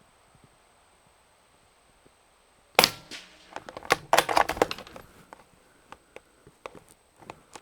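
A single shot of CCI Quiet-22 40-grain subsonic .22 LR from a rifle: one sharp, light crack about three seconds in. A quick clatter of metallic clicks and knocks follows, then a few scattered clicks near the end.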